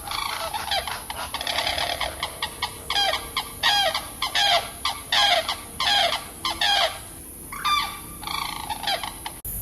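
Birds calling: a rapid run of short, chirping calls, several a second, with a brief lull about seven seconds in, cut off abruptly near the end.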